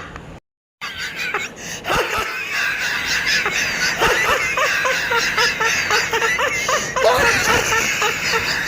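Several people laughing and shrieking at once, with a brief break in the sound just under a second in.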